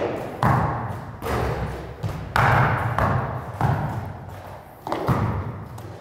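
Basketballs bouncing on an indoor court floor: a string of heavy thuds, about one a second at uneven spacing, each ringing on in the echoing hall.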